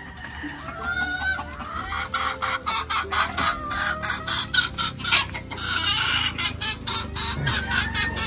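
Backyard chickens clucking, with a rooster crowing, over a dense run of sharp clicks.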